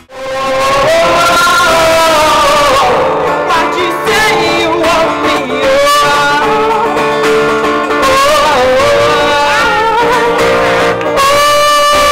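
A song sung with acoustic guitar accompaniment, one voice carrying a held, sliding melody over strummed chords.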